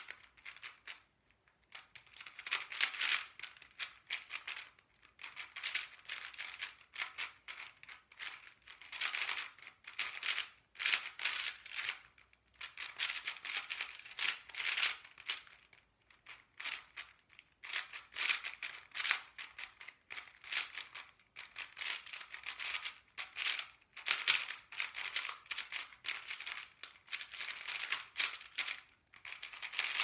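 MoYu Aosu GTS2 M 4x4 speedcube being turned fast by hand: bursts of rapid plastic clicking and rattling as the layers turn, broken now and then by short pauses.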